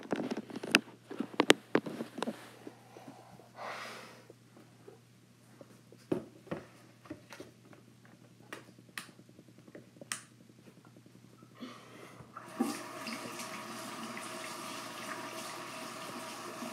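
Scattered knocks and handling clicks, then about twelve seconds in a tap is turned on and water runs steadily into a sink.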